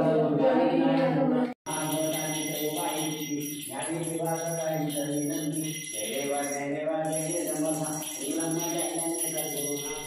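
Voices chanting a Hindu devotional mantra for a Shiva abhishek, in a slow melodic line over a steady low drone. There is a brief dropout about one and a half seconds in, after which a steady high ringing joins.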